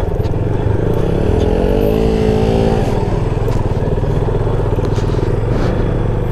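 Motorcycle engines running at low speed, mainly the rider's own Yamaha FZ25 single-cylinder. About a second and a half in, an engine revs up, holds briefly and drops back.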